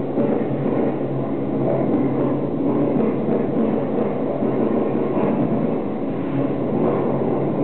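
Immersive sound art piece: a steady, dense rumbling drone with a few low tones held underneath, unbroken throughout.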